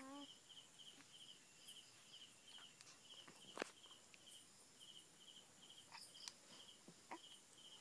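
Near silence with faint, regular cricket chirping, about three chirps a second, and a few soft clicks, the sharpest a little past halfway.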